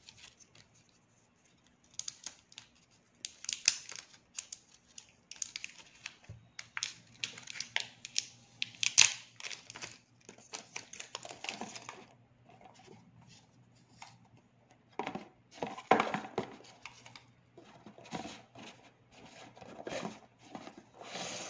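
Clear plastic protective wrap being peeled off a new smartwatch and crumpled in the hand: irregular crinkling and tearing rustles with small clicks, in bursts separated by short pauses.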